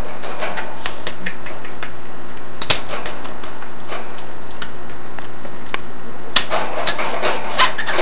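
Budgerigar chattering in its quick, scratchy warble: mumbled speech mimicry full of clicks and short squeaks, busier near the end, over a steady low hum.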